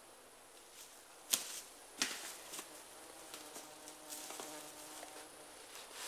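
A flying insect buzzing close by with a steady hum for a few seconds, preceded by two sharp clicks about a second apart, with light rustling and ticking around it.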